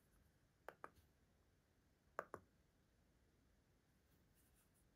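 Buttons of an IKEA STYRBAR smart remote pressed twice, each press a pair of quick, quiet clicks, the second press a little louder; the presses switch the LED lamp off.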